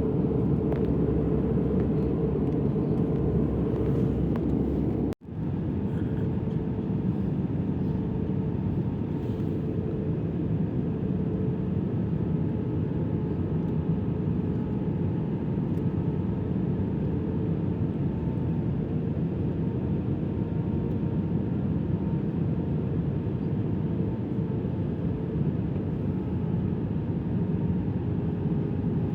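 Steady roar of engines and airflow inside the passenger cabin of an Airbus A320 in flight, with a faint steady hum. It breaks off for an instant about five seconds in, then carries on the same.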